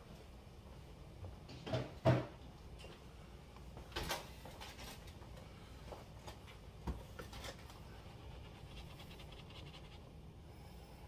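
A few scattered knocks and bumps of kitchen clatter, the loudest pair about two seconds in and smaller ones around four and seven seconds, over a faint steady background.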